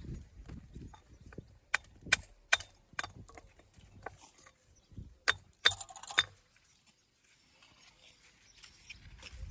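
Stone being struck with sharp, ringing knocks, as in dressing or tapping stones into a wall. Four come in quick succession about two seconds in, then a tighter cluster of three or four a few seconds later.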